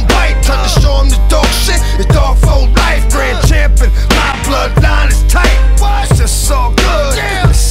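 Loud hip hop music with a heavy, sustained bass and a steady drum beat.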